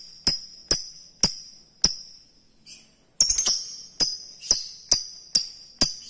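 Lovebird calling: sharp, high, ringing chirps repeated about twice a second, with a short break about two seconds in.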